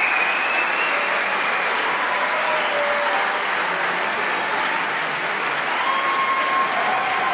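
Large audience applauding steadily, with a few faint held calls over the clapping.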